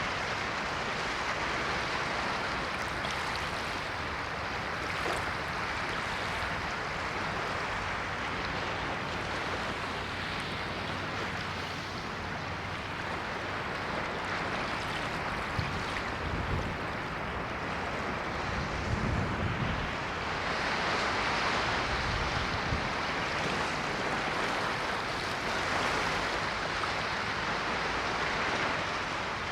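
Ocean waves washing on a shore, a steady rush of surf that swells and eases, with a few deeper rumbles of breaking waves in the second half.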